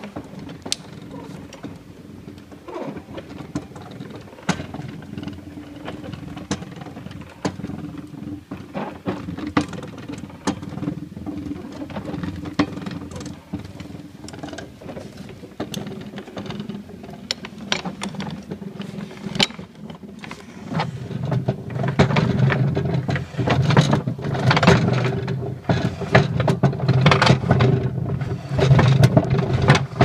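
Antique hand-operated wooden-tub washing machine being worked by its side lever, the iron linkage and gearing clattering and clicking irregularly. It grows louder and more rhythmic about two-thirds of the way in.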